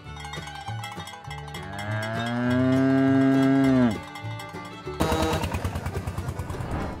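A cow mooing once, a long moo of about two seconds that drops away at the end. Then a tractor engine running with a rapid, even pulsing, over background music.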